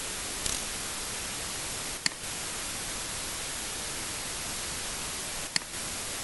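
Steady hiss, with three short sharp computer-mouse clicks: one about half a second in, one about two seconds in, and one near the end.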